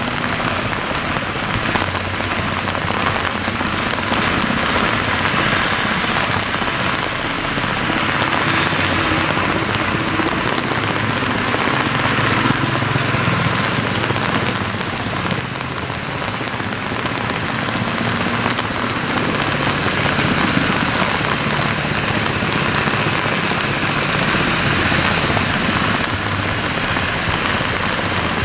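Steady rain falling, with the low hum of idling traffic engines underneath.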